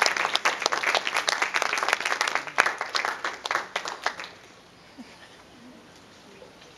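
Audience applauding, a dense patter of hand claps that dies away about four seconds in.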